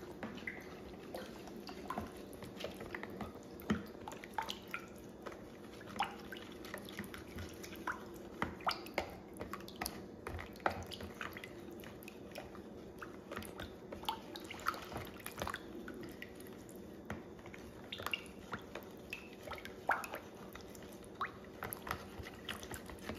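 Metal spoon stirring a thick mix of canned cream soups and water in a plastic bowl: irregular wet squelches and light clicks of the spoon against the bowl.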